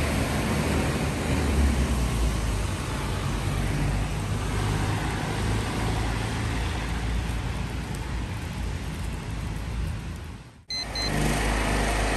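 Road traffic: steady noise of cars driving past on a street. The sound cuts off abruptly near the end and picks up again with similar outdoor noise.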